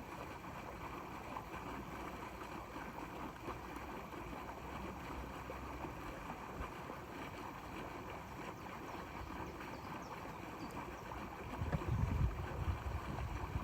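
Steady outdoor wind and water noise, with heavy low gusts of wind buffeting the microphone near the end.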